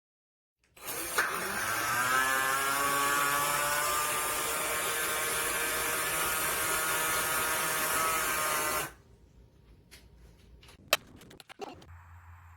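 Black+Decker cordless drill's motor spinning up with a rising whine, then running steadily for about eight seconds before stopping abruptly. A few sharp clicks and knocks follow near the end.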